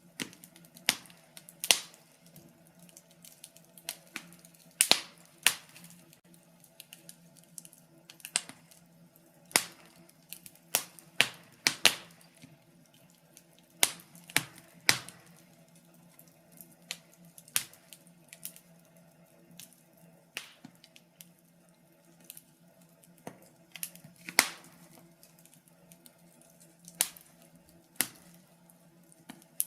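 Wood fire crackling in a fireplace: irregular sharp pops and snaps, a few much louder than the rest, over a faint steady low hum.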